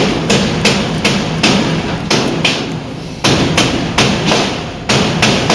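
Hammer blows struck over and over, about three a second, with a short pause about three seconds in.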